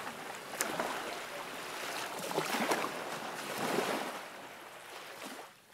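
Small sea waves washing on the shore, swelling and easing, and fading down near the end.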